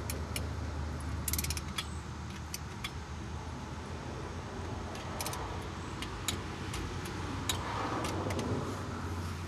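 Ratcheting torque wrench tightening a differential fill plug: a quick run of ratchet clicks about a second in, then scattered metallic clicks and taps, over a steady low hum.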